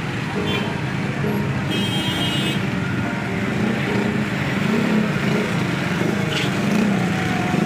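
Traffic noise from a jammed road: cars and motorcycles running in stop-and-go traffic.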